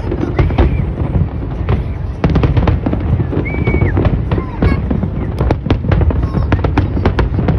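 Fireworks display: a dense run of bangs and crackles over a constant low rumble, with a short whistle about halfway through.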